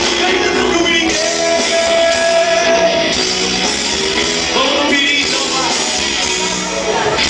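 Band music with singing and guitar, played loud and continuously.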